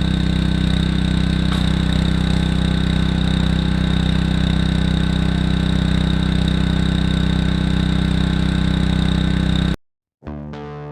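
Engine running steadily at idle with the choke on, just cranked up after the machine sat in floodwater; the sound cuts off abruptly near the end.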